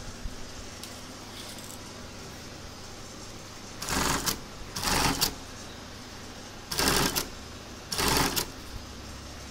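Industrial bar-tack sewing machine running in four short bursts of rapid stitching, each about half a second long, as it tacks a tag onto trousers. A steady low machine hum runs underneath.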